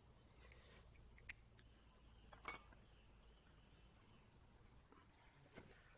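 Near silence with a steady high-pitched insect drone, likely crickets, and two light clicks of small metal valve parts being handled, about one and two and a half seconds in.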